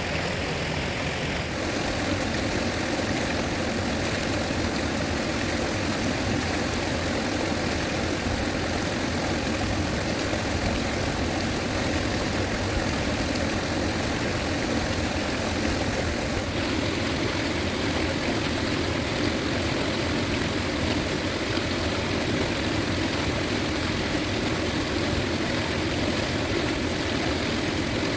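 Steady rushing roar of a fast-flowing river, an even noise without pauses; its tone shifts slightly twice.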